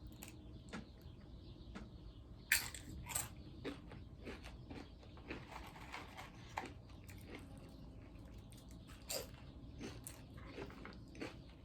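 Close-up eating sounds from a chicken quesadilla: biting and chewing, with sharp crunches about two and a half seconds in, again at three seconds, and near nine seconds, and smaller mouth clicks between them.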